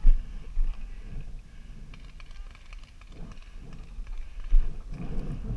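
Footsteps and dry branches scraping and rustling against gear close to a helmet-mounted camera, with irregular low thumps and a few louder knocks as the wearer pushes through dry brush.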